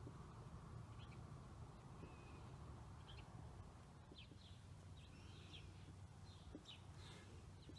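Near silence: faint, short bird chirps, a few at first and more in the second half, over a steady low rumble.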